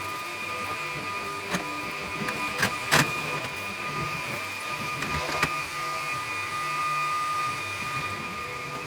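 Vacuum cleaner running with a steady whine, with a few light knocks.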